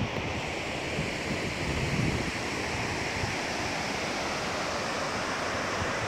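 Steady rushing of the Tortum waterfall's falling water, with wind buffeting the microphone in low gusts, strongest about two seconds in.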